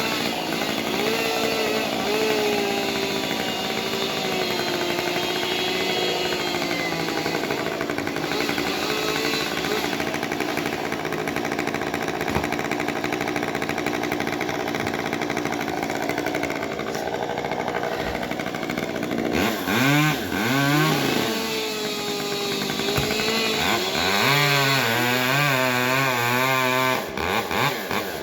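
Chainsaw running under load. In the last several seconds its engine note swings up and down in repeated revs.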